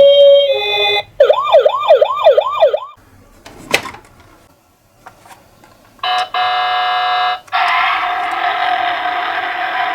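Electronic siren of a toy ambulance minicar: a steady tone, then a fast rising-and-falling yelp for about two seconds. After a short lull with a single click, steady electronic siren tones start about six seconds in.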